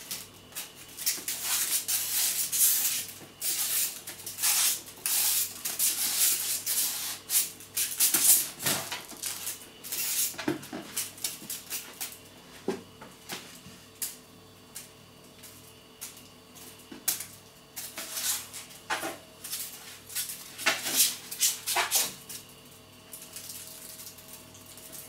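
Kitten chasing a feather wand toy over a vinyl floor: quick scratchy rustles and taps of paws and claws on the floor and the toy swishing, coming in busy flurries with a quieter stretch about halfway through. A faint steady hum lies underneath.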